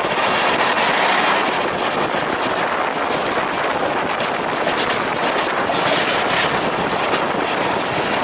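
Passenger train running at speed, heard from an open coach door: a steady rush of wheels and wind. An electric locomotive passes close alongside at the start, and rail clatter with a run of clicks comes in the middle.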